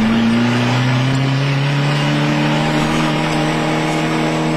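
1994 Mitsubishi Eclipse GST race car's turbocharged four-cylinder engine pulling hard in gear, its note rising slowly and steadily.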